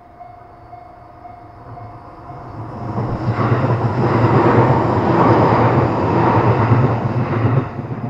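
Level-crossing alarm on the Seibu Railway ringing its older-style bell tone, a repeating ding about twice a second. About three seconds in, an electric train crossing takes over and is loud until just before the end, covering the bell.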